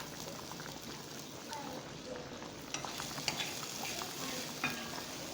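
Food sizzling in a pan on the stove while a spoon stirs it, with several light clicks of the spoon against the pan in the second half.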